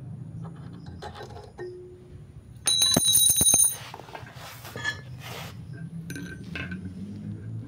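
Metal hand tools and chain parts clinking, with one loud ringing metal clang, lasting about a second, around three seconds in. A steady low hum runs underneath.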